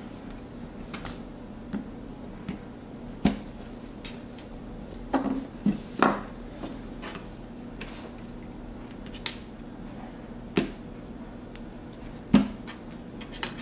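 Scattered light knocks and taps of Play-Doh, plastic tubs and hand tools being handled on a tabletop, about a dozen at irregular intervals, over a faint steady hum.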